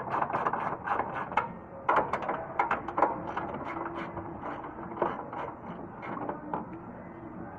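Hand ratchet wrench clicking in quick runs as a fastener is turned, with the loudest clicks about two, three and five seconds in and fewer toward the end.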